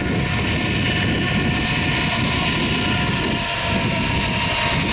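Boeing 777's twin jet engines running steadily at low power as the airliner taxis: an even whine with a few high steady tones over a low rumble.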